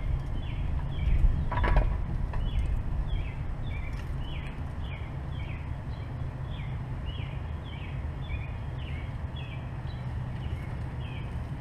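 A bird chirping over and over, short falling notes about twice a second, over a steady low rumble of background noise, with a single knock about two seconds in.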